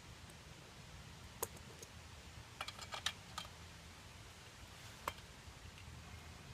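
Light metallic clicks and clinks of small hardware (nuts, bolts and washers) being handled while the halves of a split minibike rim are bolted together: a single click, a quick cluster of clinks, then one more.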